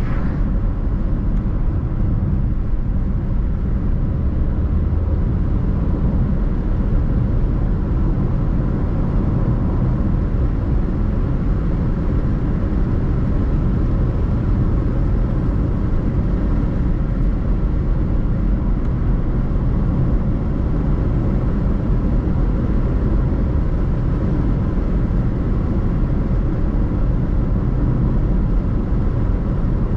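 Car driving along at a steady speed: continuous road and engine noise, heaviest in the low end.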